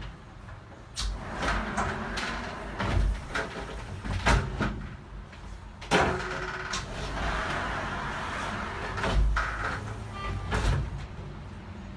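Frameless glass curtain panels being slid along their track and pushed open one after another: a series of sharp knocks and clacks as panels meet and fold back, with rolling, sliding noise between them.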